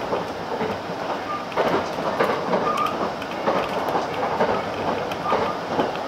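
Cabin of a JR West 681-series electric limited express train running at speed, a steady rumble of wheels and car body with irregular knocks of the wheels over rail joints.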